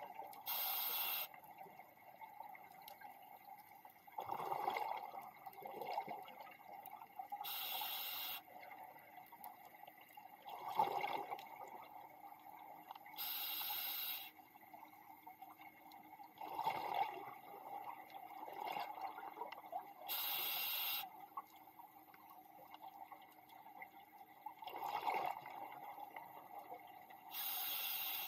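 Scuba diver breathing through a regulator underwater: a hiss of about a second on each inhale, then a burst of bubbling exhaust a few seconds later. The cycle repeats about every seven seconds, five inhales and four exhales.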